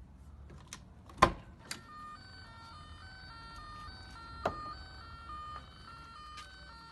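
A few sharp clicks, then from about two seconds in a simple electronic melody of beeping notes stepping between a handful of pitches, over a low steady hum.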